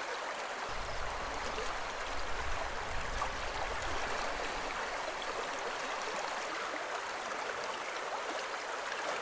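Steady rushing of a river's current over riffles. A low rumble joins it for a few seconds, starting about a second in.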